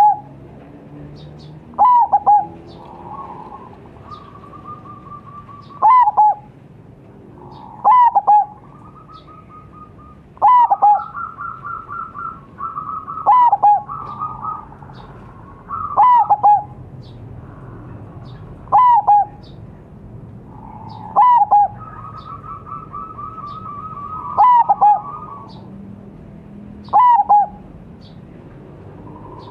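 Zebra dove (perkutut) cooing. A loud call repeats about every two and a half seconds, each a quick run of sharp, hooked notes, and quieter rolling trills fill some of the gaps.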